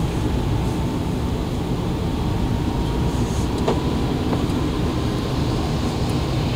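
Steady road and engine noise heard from inside the cabin of a Lada Granta driving on a wet road, a low, even rumble with tyre hiss from the wet surface.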